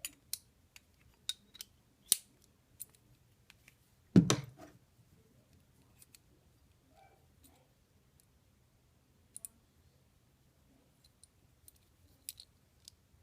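Scattered sharp clicks and taps of small hard objects being handled, with one louder knock and a short ring about four seconds in.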